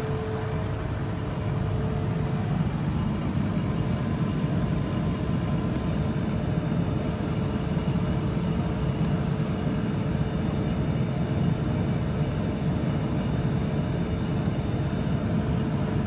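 Steady low mechanical rumble of running machinery, like an engine idling, with a faint steady tone that fades out about two seconds in.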